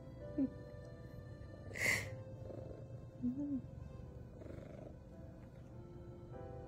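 Background music over a domestic cat purring close by. There is a brief sharp sound about two seconds in.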